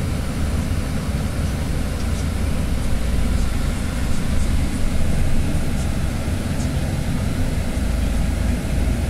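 Steady low rumble of a bus on the highway heard from inside the cabin: engine and road noise.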